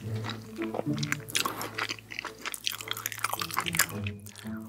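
Close-miked crisp crunching and chewing of breaded fried chicken nuggets coated in cheese sauce, a rapid run of short crackling bites and chews.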